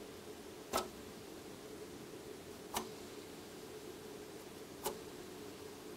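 Three sharp clicks about two seconds apart over a steady low hum, as a tape guide roller on an Otari MX-55 reel-to-reel tape deck is handled by hand.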